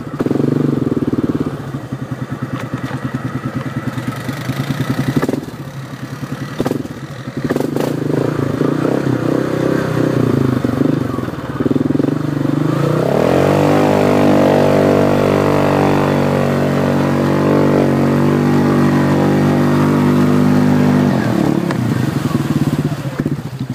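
Small engine of an off-road vehicle running at low revs, then revved up about 13 seconds in and held at high revs for several seconds before dropping back to idle near the end.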